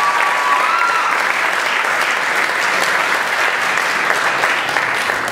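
Audience and judges applauding steadily.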